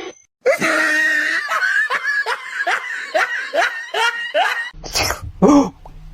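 Hearty laughter in a rapid run of repeated pulses, about three a second. Near the end it cuts to a low steady hum and a couple of short, sharp sounds.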